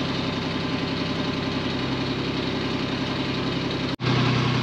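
A boat's engine running steadily at slow cruising speed, with an even throb. About four seconds in it breaks off for an instant and comes back louder.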